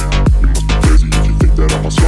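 Background music: an electronic hip-hop instrumental with a steady, heavy drum beat and deep bass.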